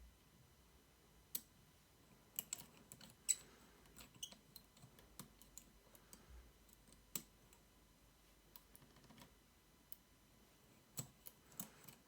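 Faint, scattered metallic clicks of a locksmith's pick tool working the pins inside a Mul-T-Lock Interactive cylinder, the loudest about three seconds in.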